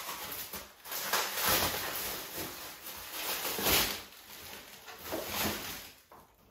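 Clear plastic wrapping crinkling and rustling in uneven bursts as it is pulled off a canvas print, dying down near the end.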